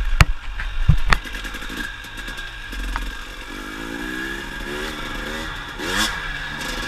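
2018 KTM 300 TPI fuel-injected two-stroke single-cylinder dirt bike engine revving up and down on a trail, with a quick rise in revs near the end. A few sharp knocks come in the first second or so.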